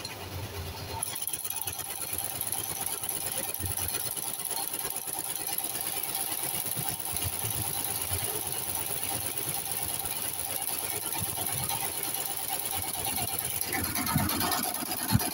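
Garment factory machinery running steadily, a mechanical whir with a high hiss that sets in about a second in. Near the end there is rustling and a knock.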